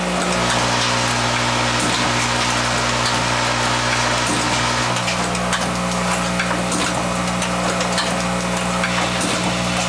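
Automated rotary-indexing assembly machine running, with its vibratory feeder bowls: a steady low hum under a dense, fine crackling rattle of small parts.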